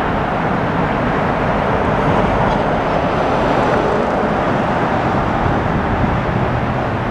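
Steady jet-engine noise from a Boeing 787-10 Dreamliner climbing overhead shortly after takeoff.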